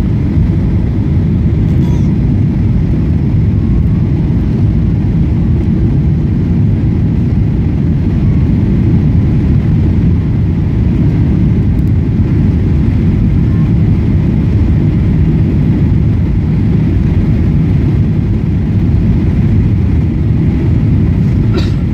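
Steady low roar inside a jet airliner's cabin during the landing approach.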